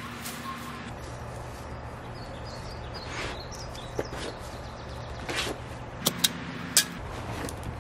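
Steel shovel blade digging into sandy soil, giving a few sharp clinks and scrapes; the loudest three clinks come close together near the end. A steady low hum and faint bird chirps run underneath.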